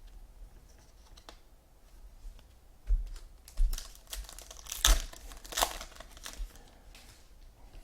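Trading-card packs and cards being handled: wrapper crinkling and cards rustling and clicking against each other, with a few sharper rustles and soft thuds in the middle of the stretch.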